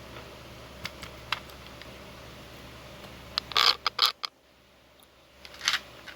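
Small sharp clicks and taps of metal lock parts being handled: a few light ticks, then a quick cluster of louder clicks a little past three seconds in, and two more near the end.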